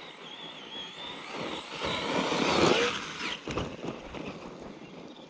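Redcat Kaiju EXT electric RC monster truck being driven on dirt. A thin, wavering high motor whine is followed by a rush of tyres churning dirt that is loudest about two to three seconds in, with a few knocks about three and a half seconds in.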